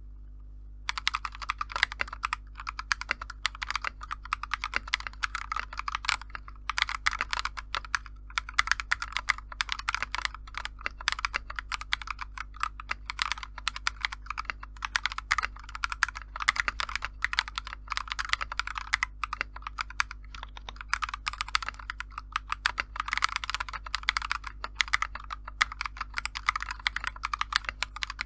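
Continuous typing on a mechanical keyboard fitted with stock, unlubed KTT Kang White V3 linear switches, with dense clacking keystrokes and a few brief pauses. It starts about a second in over a steady low hum.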